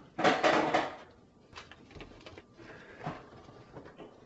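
Metallic foil ducting tape being handled on a sheet-metal duct: a short crinkling rustle of the foil near the start, then faint taps and rustles as it is pressed on.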